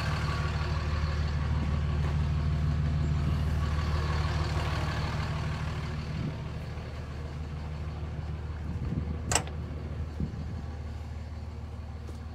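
A vehicle engine idling steadily, with a single sharp click about nine seconds in.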